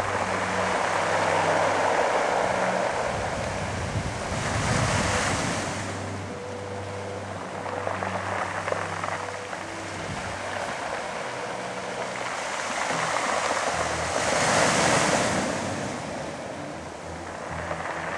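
Sea surf washing onto a pebble beach, a continuous rush with two louder waves breaking, about five seconds in and again about fifteen seconds in.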